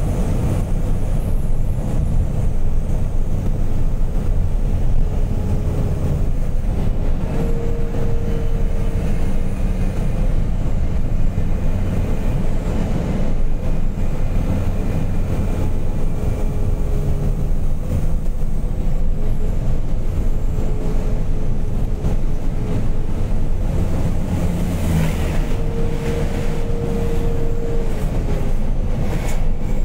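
Fully loaded truck's engine running steadily, with road noise, heard from inside the cab. A whine comes and goes several times over the rumble.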